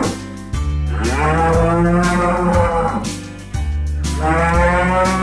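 Cattle mooing: two long moos of about two seconds each, the second starting a little past the middle, over background music.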